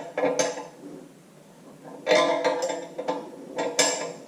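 Metal clinking and scraping in three short bursts as a wrench turns the nut on a ½-inch all-thread puller, drawing a new steering-shaft bushing into a tractor's front bolster.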